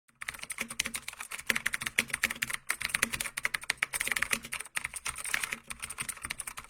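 Rapid, irregular keystrokes typing on a computer keyboard, many clicks a second.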